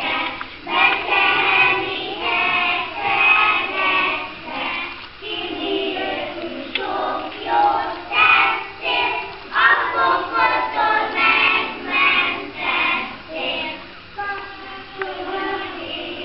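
A group of young children singing together in unison, a song sung line by line throughout.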